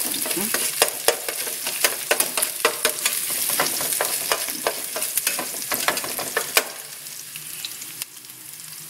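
Chopped onion and garlic sizzling in hot oil in a stainless steel pan while a metal spoon stirs them, clicking and scraping against the pan. The stirring stops about three-quarters of the way through, leaving a quieter sizzle.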